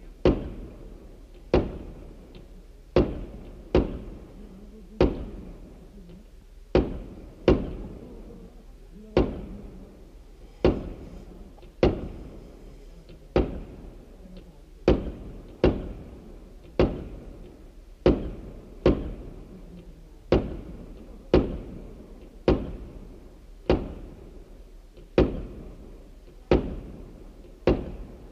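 Aerial fireworks going off in a steady series of sharp bangs, about one a second and sometimes two in quick succession, each trailing off in an echo.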